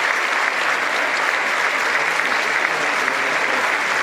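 A large concert-hall audience applauding steadily, a dense even clapping from many hands.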